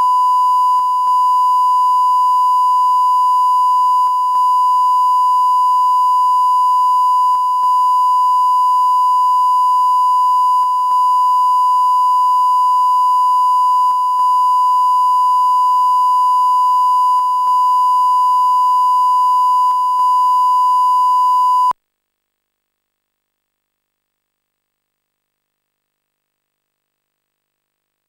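Steady 1 kHz line-up test tone that goes with colour bars. It has a brief dropout about every three seconds and cuts off suddenly about 22 seconds in.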